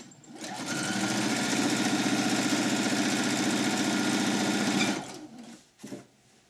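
Electric domestic sewing machine stitching a long straight seam: it speeds up over the first second, runs steadily at full speed for about four seconds, then stops. A few faint knocks follow.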